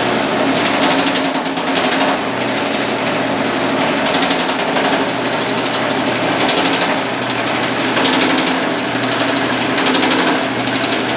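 Homemade electric power hammer, built around a cut-down differential, running steadily with its dies rapidly hammering a sheet-metal disc being shaped into a shallow dish, over a steady motor hum.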